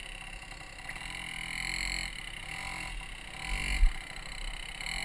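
1977 Yamaha Champ's 80cc two-stroke engine running at low speed as the mini-bike rides, with a brief loud thump a little before four seconds in.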